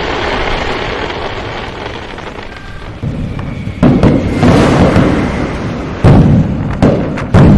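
Rushing, splashing river-rapids water buffeting the microphone, a fading rumble that breaks into several sudden heavy surges in the second half.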